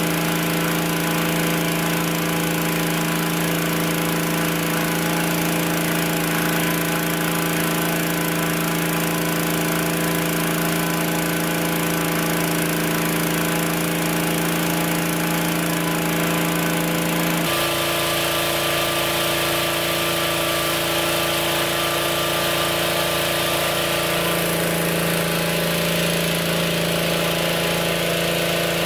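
Petrol-engine inflator fan running steadily, blowing cold air into a hot air balloon envelope during cold inflation. Its tone changes abruptly about two-thirds of the way through.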